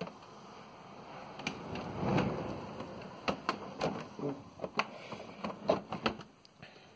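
Storm wind in hurricane-force gusts, swelling into a rush about two seconds in, with scattered sharp knocks and rattles through the rest.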